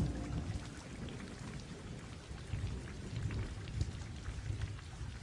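Rain falling, with low rumbles of distant thunder swelling in the middle and the whole fading out slowly.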